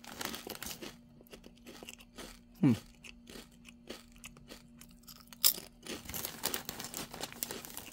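Chewing thick kettle-cooked potato chips: irregular sharp crunches, with a brief falling tone, like a short voice sound, about a third of the way in.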